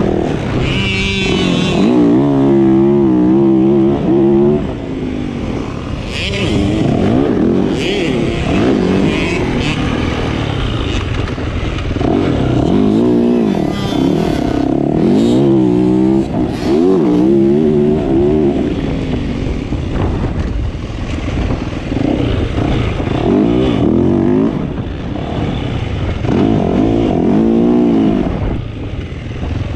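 65cc two-stroke youth motocross bikes revving hard on a dirt track. The engine pitch climbs and drops over and over with each gear and throttle change, and at times two or more engines overlap.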